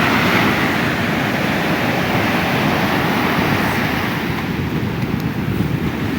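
Ocean surf breaking and washing up the beach, with wind buffeting the microphone. The rush of water is strongest at first and eases a little after about four seconds.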